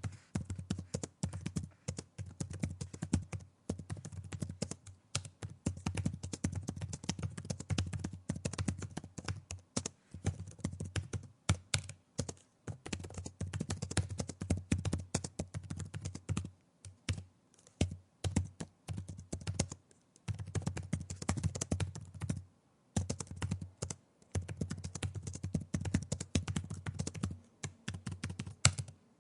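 Typing on a laptop keyboard: fast, uneven runs of key clicks, broken by short pauses.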